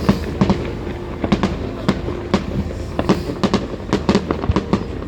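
Fireworks display going off: a dense, irregular run of bangs and crackles, several a second, with no pause.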